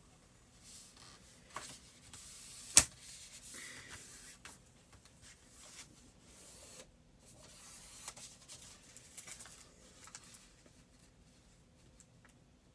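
Sheets of scrapbook paper being handled and slid over one another on a craft table, rustling on and off, with one sharp tap about three seconds in.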